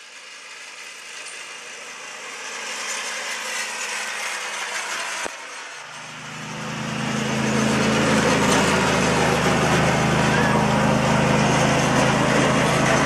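Riding lawn tractor's small engine running, growing louder as it approaches, then loud and steady up close from about halfway through. A brief click about five seconds in.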